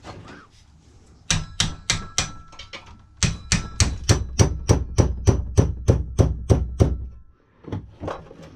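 Hammer blows on the metal body of a microwave magnetron being broken apart for its copper: a few strikes, then a quick run of about fourteen at roughly four a second, each with a faint metallic ring.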